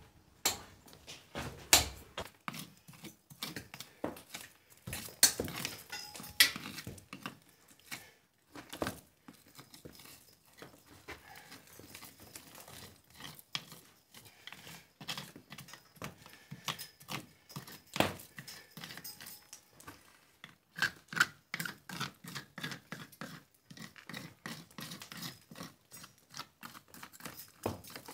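Irregular sharp knocks, taps and scrapes of a steel trowel picking loose mortar out of the joints of an old stone wall, with one louder knock past the middle.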